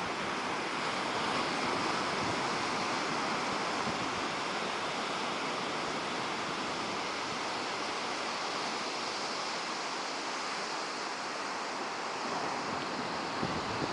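Ocean surf washing onto a beach: a steady, continuous hiss of breaking waves, with no single crash standing out.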